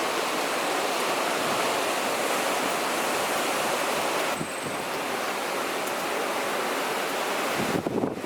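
Storm of gale-force wind and heavy rain: a steady, dense rushing.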